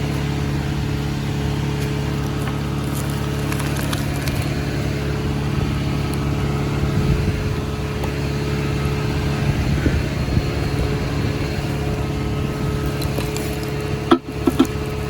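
Excavator's diesel engine running steadily at a constant speed, with a short knock near the end.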